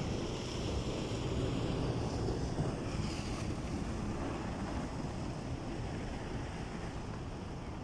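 Muddy flash flood of water and debris rushing down a valley channel: a steady, deep, rushing rumble that eases slightly toward the end.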